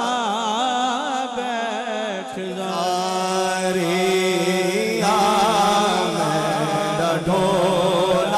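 A man singing a Saraiki devotional kalam solo into a microphone, unaccompanied by instruments: long drawn-out melismatic phrases with heavy vibrato, one held smoothly for a couple of seconds near the middle, over a steady low drone.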